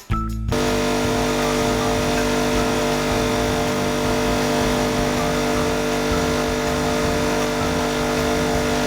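A workshop machine, probably a power tool, running steadily: a constant motor hum over an even hiss. It starts about half a second in.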